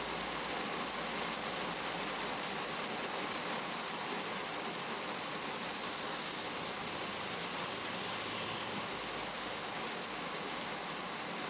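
Steady rain falling on a car's windshield and roof, heard from inside the cabin.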